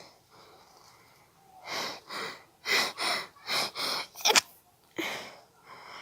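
A person stifling a sneeze in an allergy sneezing fit. About two seconds in comes a run of quick, sharp breathy sounds, then a short, sudden stifled sneeze about four seconds in, and one more breath near the end.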